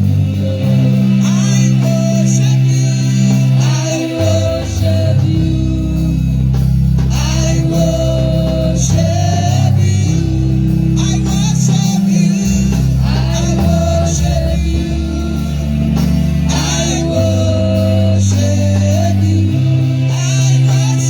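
Live worship music with singing over a band: sustained bass and keyboard chords, guitar, and a steady beat with cymbals.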